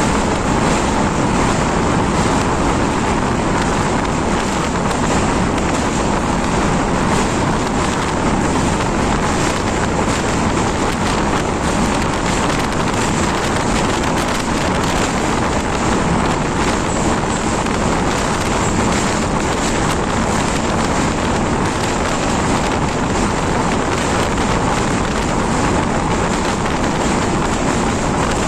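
Train running across a steel truss bridge, a steady, unbroken noise of the coach in motion, with wind buffeting the microphone through the open barred window.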